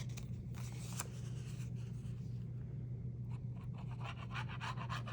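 Paper being rubbed and pressed down by hand onto a journal page while gluing it in place: a run of quick scratchy strokes from about three seconds in, with a couple of light clicks before, over a steady low hum.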